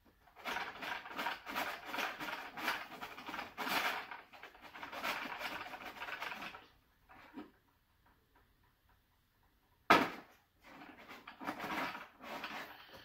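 Plastic toy Slime Factory mixer being worked by hand, a clicking, rattling plastic churn as it mixes the slime, in two spells with a quiet gap between them and one sharp knock about ten seconds in.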